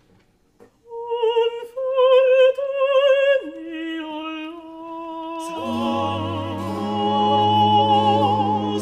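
Baroque oratorio singing: after a second of near silence, a high classical voice with wide vibrato enters, and other voices join it. A few seconds later low sustained accompaniment notes come in under them.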